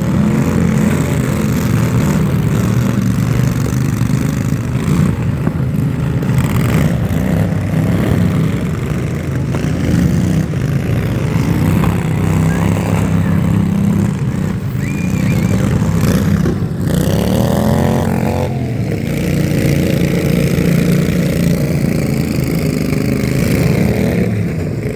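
Motor vehicle engine running steadily and loudly, with a brief rising sweep in pitch about two-thirds of the way through.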